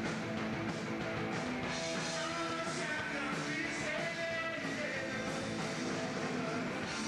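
Live rock band playing a fast song, with electric guitars over a steady drum beat and cymbals.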